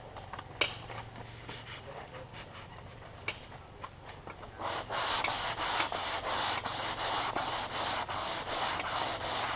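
A few small taps, then about five seconds in, hand sanding starts: quick back-and-forth strokes, about three a second, over dried filler on a car's rear fender repair.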